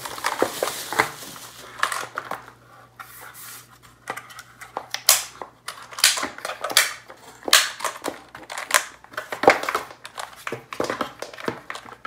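Plastic bubble wrap crinkling and rustling as a mechanical keyboard is slid out of it and turned over, with irregular knocks of the plastic keyboard being handled. Near the end, a run of light key clicks as its keys are pressed.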